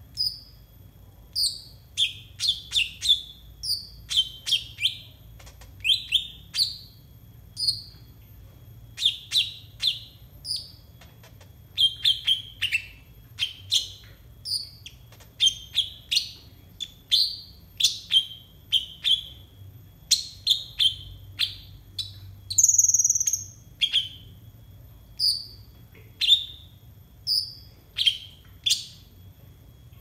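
Kolibri ninja (Van Hasselt's sunbird) singing: a run of short, high chirps and twitters repeated one or two a second. A longer, louder buzzy trill comes about two-thirds of the way through.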